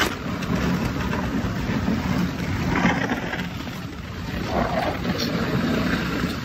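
Outdoor ice-rink ambience: a steady low rumble and hiss, with faint voices of skaters now and then.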